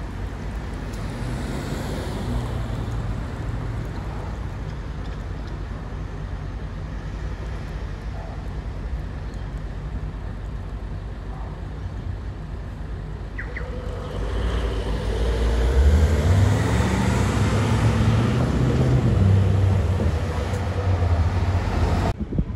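Steady street traffic, then a city bus pulls away from the lights and passes close by, its engine note rising as it accelerates and loudest over the last several seconds.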